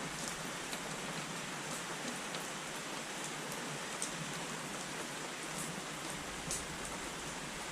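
Steady rain falling, a continuous hiss with scattered sharp ticks of individual drops.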